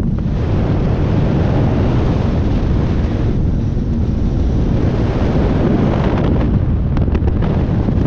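Wind buffeting the microphone in a steady low rumble, over the wash of sea water around a small boat underway.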